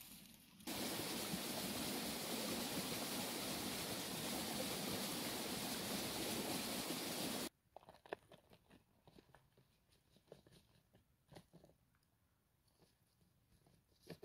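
A steady, loud rustling hiss that cuts in abruptly and stops abruptly after about seven seconds, then quiet with scattered light ticks and taps as blackberries are tipped from a small plastic tub into an enamel pot.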